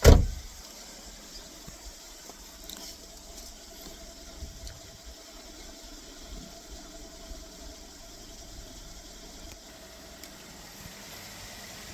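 A single loud thump at the very start, then a car engine idling steadily at a low level.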